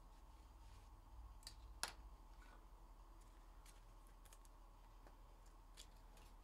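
Near silence: a low steady hum with a few faint, scattered clicks, the sharpest about two seconds in.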